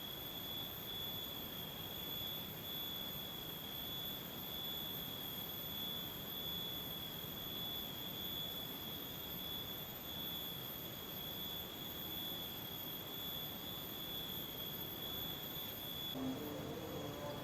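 Steady, high-pitched drone of insects in the forest: two continuous shrill tones over a light hiss. Near the end the lower tone stops and a faint lower-pitched call starts.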